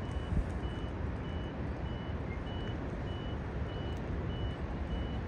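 Vehicle reversing alarm: about nine short, high, single-pitch beeps, evenly spaced at a little over one and a half a second. A steady low rumble of city traffic lies under them.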